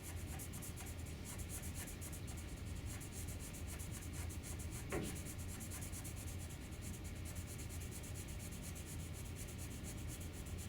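Felt-tip marker scribbling in quick, repeated strokes as colour is filled in, a steady scratchy rubbing, with one short falling squeak about halfway through.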